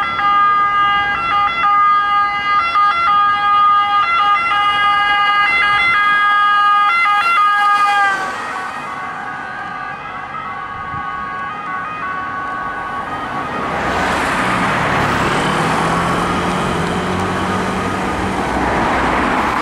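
Italian ambulance two-tone siren alternating steadily between its two pitches. It sags slightly in pitch and stops about eight seconds in. Road traffic noise follows, growing louder from about fourteen seconds with the sound of a passing vehicle's engine.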